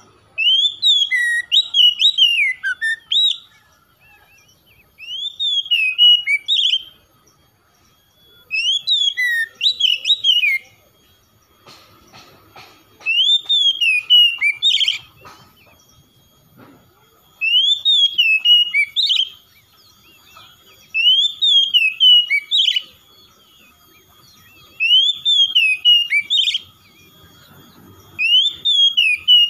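Oriental magpie-robin singing: eight phrases of clear, swooping whistled notes, each about two seconds long, with a pause of a second or two between them.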